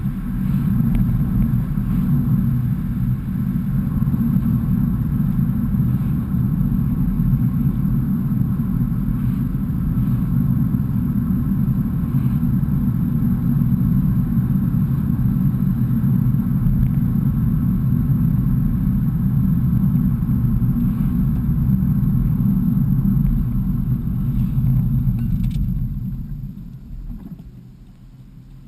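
Steady low road and engine rumble inside a BMW E46's cabin while driving, dropping away near the end as the car slows.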